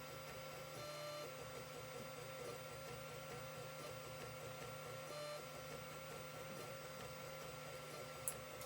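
Creality CR-10 3D printer at work: its stepper motors give a faint warbling whine that shifts pitch briefly as the head changes moves, over a steady low hum. A single sharp click near the end.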